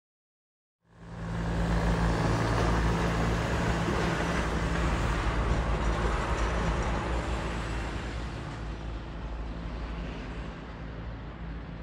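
Class 460 'Tornádo' electric multiple unit running past, with a dense rush of wheel and running noise and a steady low hum. It cuts in suddenly about a second in and slowly fades over the last few seconds as the train draws away.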